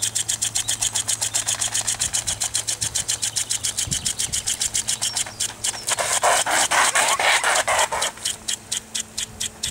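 Spinning lawn sprinkler spraying water in a rapid pulsing hiss, about seven pulses a second as its jets sweep round. A louder, denser burst of spray comes about six seconds in and lasts about two seconds.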